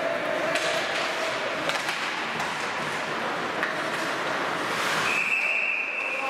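Ice hockey rink sounds: skates scraping and sticks and puck clacking over a steady arena hiss. About five seconds in, a referee's whistle blows one steady note for about a second, stopping play.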